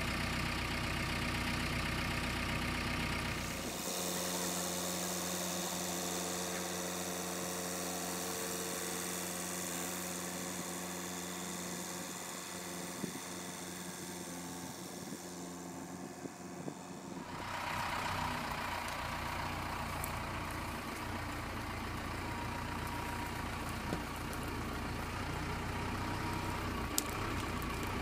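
Backhoe loader's diesel engine running steadily while it carries a load in its front bucket. The sound changes abruptly about 4 seconds in and again about 17 seconds in.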